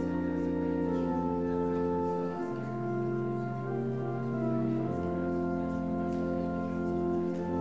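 Church organ playing slow, sustained chords. The deepest bass note lifts off for a few seconds in the middle, and a higher bass note is held in its place.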